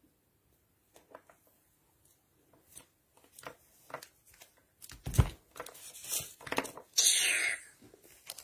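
Handling noise close to the microphone: scattered clicks and taps, a thump about five seconds in, and a loud rustle about seven seconds in.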